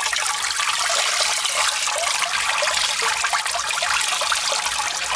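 Steady trickling of running liquid.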